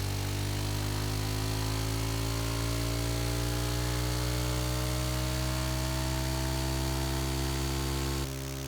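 Suzuki DR-Z dual-sport motorcycle's single-cylinder engine pulling in fifth gear, its pitch climbing slowly as the bike accelerates. About eight seconds in it cuts abruptly to a steadier, quieter engine sound, the clip of the other bike.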